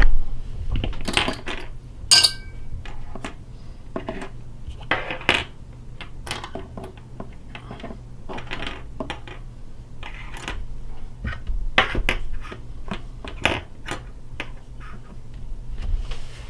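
Irregular clicks, knocks and rustles of things being handled and set down close to the microphone, with a thump at the start and a short metallic clink that rings briefly about two seconds in.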